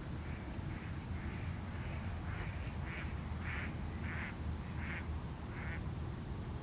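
Mute swan giving a series of about ten short calls, one roughly every half second to two-thirds of a second, growing louder toward the middle and stopping shortly before the end.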